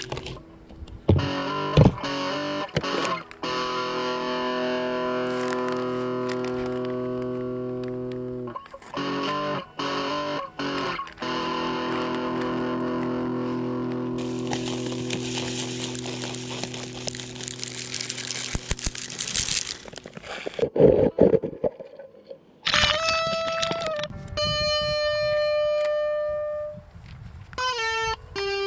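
Background music: guitar played through effects and distortion. It holds long chords, then moves to single picked notes about two-thirds of the way through.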